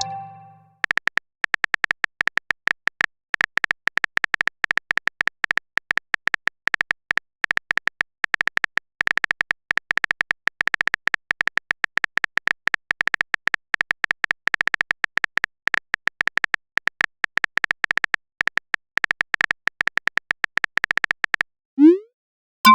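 Phone keyboard typing sound effect: a fast, uneven run of short, high clicks, as on a touchscreen keyboard. The clicks stop about a second before the end.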